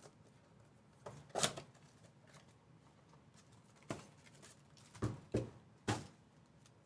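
Sparse handling sounds of a cardboard trading-card box being opened and its foil packs taken out: a few short rustles and scrapes, the loudest about a second and a half in, with several more between four and six seconds.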